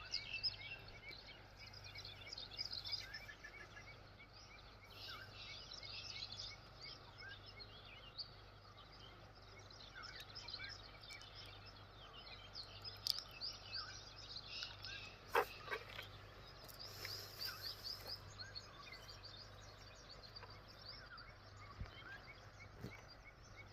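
Many small birds chirping in quick, short notes, over a faint steady low hum, with one sharp click about midway.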